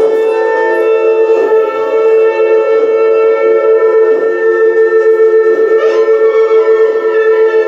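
Wind instruments sounding one long, steady note together, a horn-like drone that does not change pitch.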